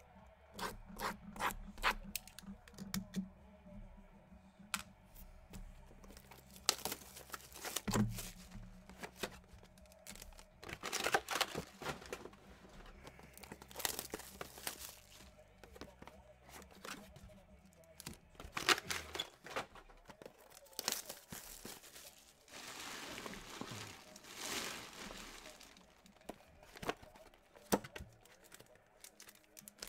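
Plastic shrink-wrap being torn and peeled off sealed trading-card boxes, crinkling as it comes away, with clicks and taps from the boxes being handled.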